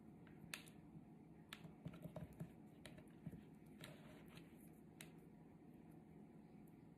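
Near silence with a few faint, irregular small clicks and ticks from hands working baker's twine around a raw chicken in a plastic bowl.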